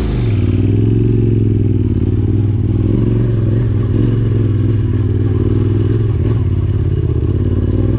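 Yamaha Ténéré 700's 689 cc parallel-twin engine pulling a motorcycle up a steep dirt climb. The revs rise and settle in the first couple of seconds, then hold steady.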